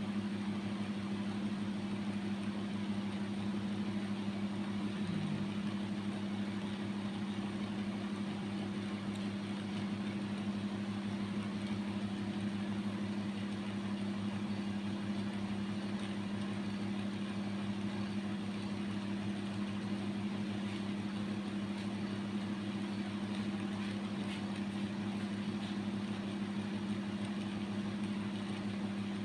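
A steady low machine hum with a faint even hiss behind it.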